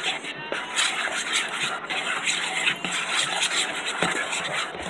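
A fork stirring and scraping through thin, wet batter in a bowl, in quick irregular strokes against the bowl's sides. The batter is being mixed smooth and thin, to a paint-like consistency.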